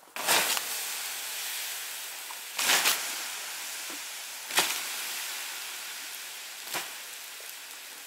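Water poured onto a burning wood fire in a fire pit, the hot embers hissing and sizzling steadily as they are doused and turned to steam. The hiss comes in suddenly with the pour, swells again about two and a half seconds in, and is broken by a sharp crack about halfway through.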